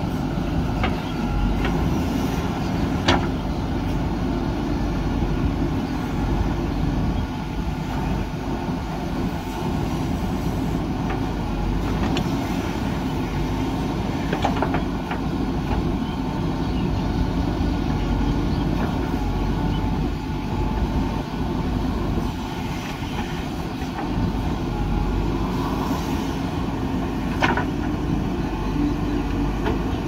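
JCB 3DX backhoe loader's diesel engine running steadily while the backhoe digs soil and swings loads into a tipper truck. A few sharp metal clanks from the bucket and boom are heard, about 3 s in, in the middle and near the end.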